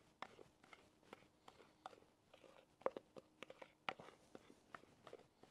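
Faint, irregular clicks and taps of a wooden spoon scraping thick cake batter out of a ceramic mixing bowl into a cast iron skillet, with the two loudest knocks a little before the middle and again about two-thirds through.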